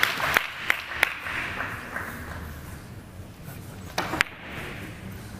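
Audience applause, with single hand claps about three a second standing out, dying away over the first couple of seconds. Then two sharp knocks come close together about four seconds in.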